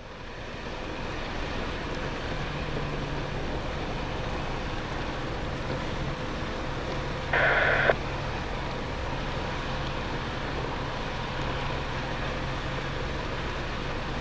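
Steady low rumble and hiss of airport surroundings with a faint low hum, and a half-second burst of radio static from an air traffic control receiver about seven seconds in.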